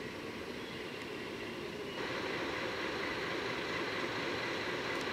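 Steady running noise of locomotives standing in a rail yard, an even mechanical drone that gets a little louder about two seconds in.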